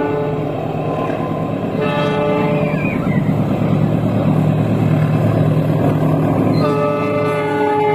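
KAI CC204 diesel-electric locomotive sounding its multi-tone horn twice, a short blast about two seconds in and a longer one near the end, over the steady low rumble of the passing train.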